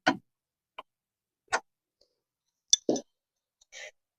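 Scattered clicks of a wrench being worked on a car engine's motor mount bolt as the mount is tightened, with a louder knock about three seconds in.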